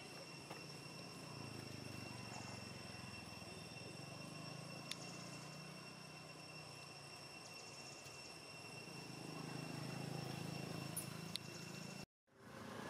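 Faint outdoor ambience: a steady high-pitched insect drone over a low rumble, with a couple of faint clicks. The sound drops out for a moment near the end.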